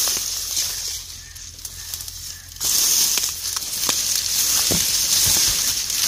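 Dry grass and thorny brush crackling and rustling as someone walks and pushes through it, much louder from about two and a half seconds in, with a few soft footfalls.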